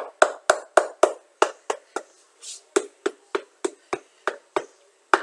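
Shoemaker's hammer tapping a rubber cup sole onto a shoe, pressing the contact-cemented sole down along its edges. Quick even taps, about three a second, with a short pause around the middle.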